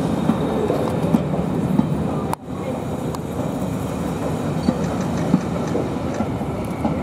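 Passenger coaches of an arriving train rolling past a platform: a steady rumble of wheels on rail with a few sharp clicks over rail joints. The sound drops out for an instant about two and a half seconds in.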